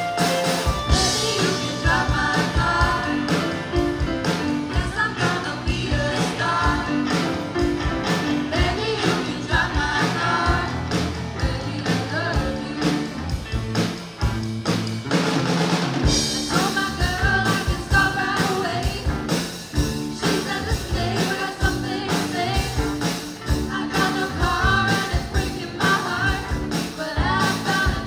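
Youth rock band playing live: drum kit, electric guitars and bass, with a sung lead vocal. The singing drops out for a couple of seconds about halfway, then comes back.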